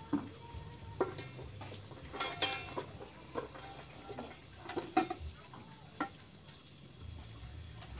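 A serving spoon knocking and scraping in a metal cooking pot as food is scooped out. The clinks are irregular, some ringing briefly, with the loudest about five seconds in.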